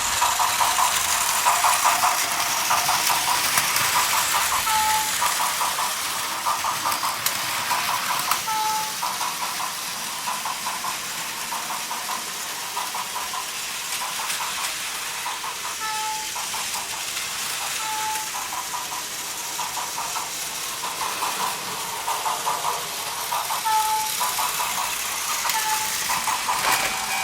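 Plarail battery-powered plastic toy trains running on plastic track: a steady motor whir with fast clicking of the wheels over the track, and a short high tone about six times at uneven intervals.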